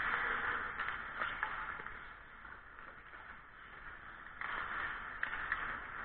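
Ice skate blades scraping and carving the ice close by, with a few sharp clacks. The scraping dies down in the middle and starts again abruptly about four and a half seconds in.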